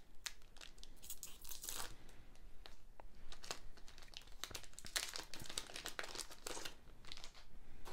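Plastic wrapper of a trading card booster pack being torn open and crinkled by hand, in faint irregular crackles with a few louder bursts.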